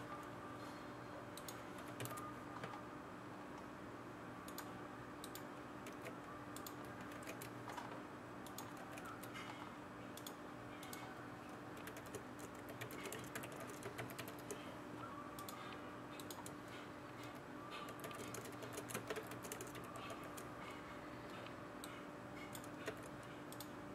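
Soft, irregular clicking of typing on a computer keyboard, over a steady low hum.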